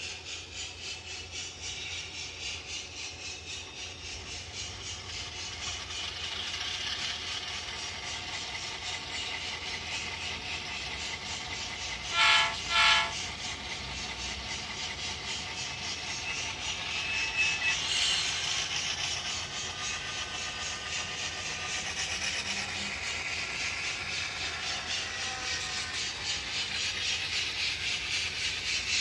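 Model train with a DCC sound decoder running, its recorded locomotive sound playing through the model's small speaker as a steady, finely pulsing rumble, along with the model's running noise on the track. About 12 seconds in, the decoder sounds two short horn blasts.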